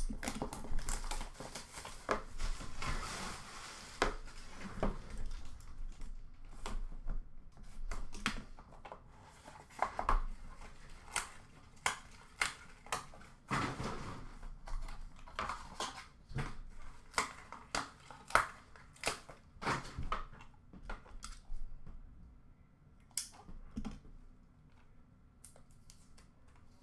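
Hands opening a sealed cardboard hockey card box. A stretch of rustling and tearing comes about two seconds in, then scattered sharp clicks and taps of cardboard being pried and handled, fewer and fainter near the end.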